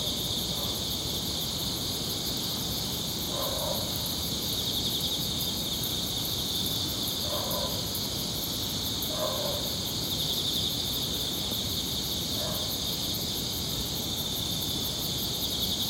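Night chorus of crickets and other insects: a steady, high-pitched pulsing trill with a still higher shimmering layer above it. A few short, lower-pitched sounds come every few seconds.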